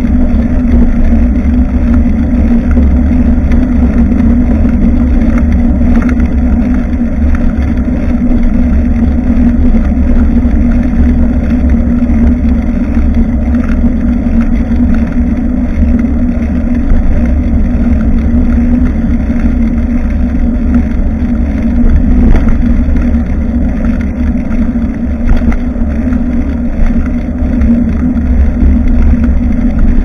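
Steady low rumble of wind and road noise on the microphone of a rear-facing action camera on a moving bicycle, with a constant hum underneath.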